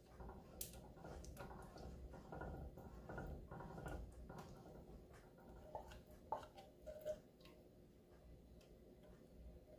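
Faint, scattered clicks and soft taps of kitchen utensils against a cooking pan, with two sharper clicks a little past the middle.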